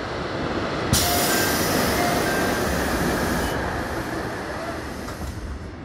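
Rail noise at a station: a steady rumble of a freight train passing on a nearby track. About a second in, a sudden loud hiss starts and cuts off abruptly a couple of seconds later, with a few short squealing tones.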